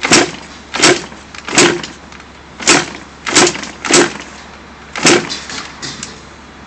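Yamaha Banshee ATV being tried for a start without catching: seven sharp bangs at uneven intervals over about five seconds, with no steady running between them.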